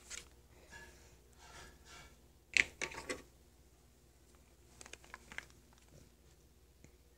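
Faint handling noise: soft rustles and scattered small clicks, with a short louder breathy rush about two and a half seconds in.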